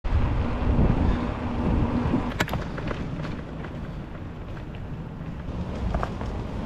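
Bicycle rolling over cobblestones and then paving, with wind rushing over the handlebar camera's microphone and a steady low rumble, plus a few sharp rattling clicks.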